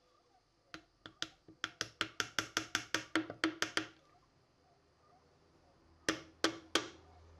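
Sharp taps driving a glued wooden pin into the lid hinge of a walnut tankard: a quick run of about sixteen taps at roughly five a second, then three more spaced taps near the end.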